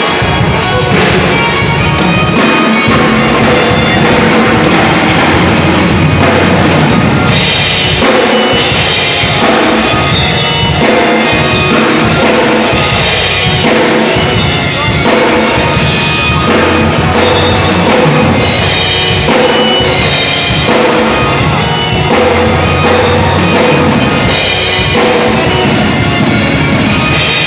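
Drum kit played continuously and loudly along with pitched backing music.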